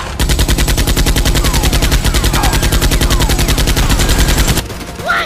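Machine-gun sound effect: a long, very rapid, even burst of automatic gunfire with a few falling whistles over it, cutting off abruptly about four and a half seconds in.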